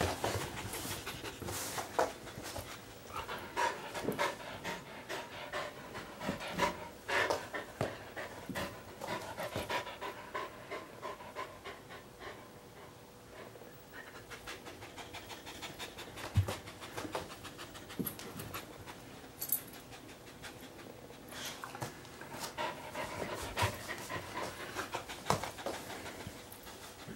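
A dog sniffing and snuffling into a comforter in quick runs of short sniffs, with the bedding rustling. The sniffing goes quieter for a while in the middle, then picks up again.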